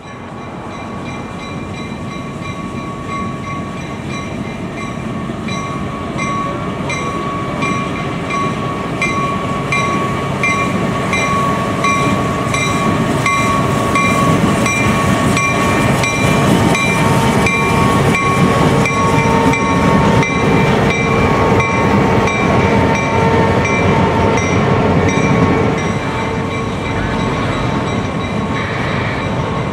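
A pair of CSX diesel switcher locomotives, an EMD MP15AC and a GP38-2, rolls past hauling auto-rack cars. The engines run loud and grow louder as they approach, with a steady bell ringing a little faster than once a second. From about halfway in, steel wheels click over rail joints, and the engine sound eases a little near the end as the locomotives move on.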